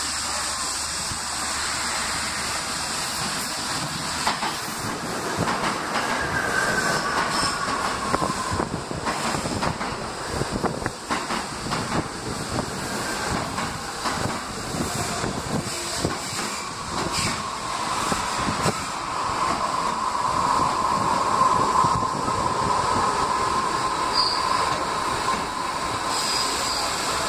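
An R68A New York City subway train running slowly into a station, its wheels clicking over rail joints. A high squeal falls in pitch about six seconds in, and a longer, louder squeal comes in the second half as the cars roll past.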